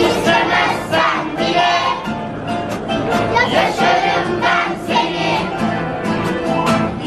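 Children's choir singing a Turkish song, continuously and without pause.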